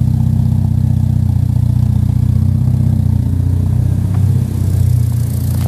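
Porsche 924's four-cylinder engine idling steadily, its exhaust giving a low, even note at the tailpipe.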